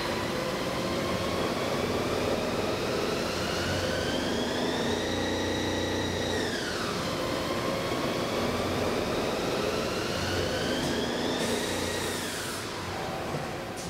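Haas ST-20Y CNC lathe turning a D2 tool steel pin under flood coolant. A steady whine climbs slowly in pitch, drops about six seconds in, then climbs again and drops near the end, over the hiss of the coolant spray.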